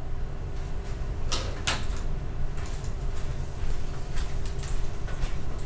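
Steady low rumble and hum of a room, with a series of short clicks and knocks scattered through it; the loudest two come close together about a second and a half in.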